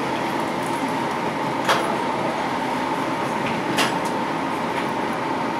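Steady hum inside a light-rail car standing at an underground station platform, with a faint steady whine. Two sharp clicks come about two seconds apart.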